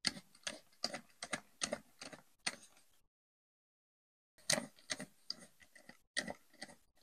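Small screws being turned with a precision screwdriver to fasten a circuit board into a plastic instrument case: a run of light, sharp clicks and ticks, about three a second, pausing for a second and a half midway as the screwdriver moves to the next screw.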